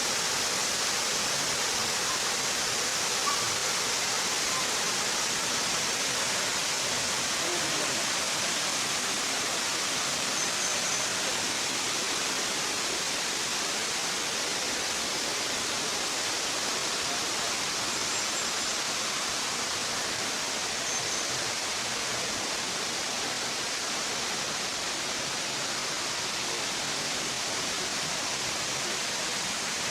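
Waterfall: water cascading in a steady, unbroken rush.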